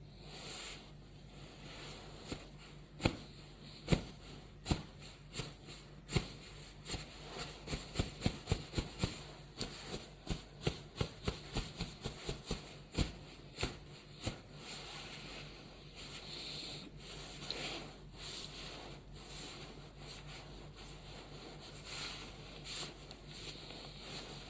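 Stomach gurgling: a run of irregular sharp pops, fastest and densest in the middle of the stretch, over a faint steady hum.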